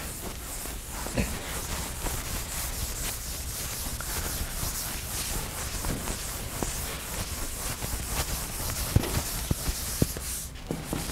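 Chalkboard eraser rubbing across a blackboard, with a few light knocks.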